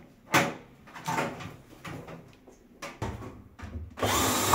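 Knocks and clunks of a kitchen range hood and its fittings being handled and held in place during installation, then near the end a louder, steady noisy sound over a low hum.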